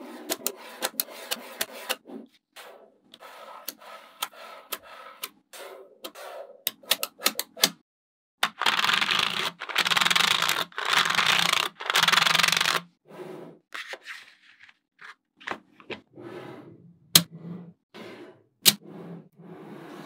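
Small magnet balls clicking and snapping together as strips of them are joined into slabs, a run of sharp clicks. About eight seconds in comes a louder scraping of a clear plastic sheet slid across the layer of magnet balls, lasting about four seconds, then the clicking resumes.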